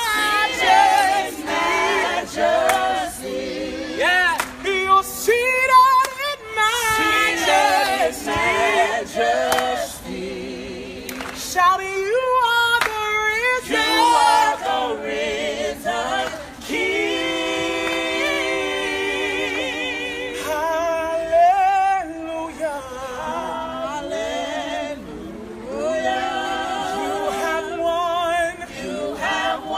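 A group of people singing a worship song unaccompanied, with long, wavering held notes in the middle. A few sharp clicks come in the first half.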